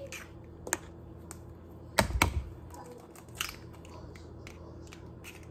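Eggs being cracked into a mixing bowl: a few sharp taps and cracks. The loudest is a knock about two seconds in, with another tap about three and a half seconds in.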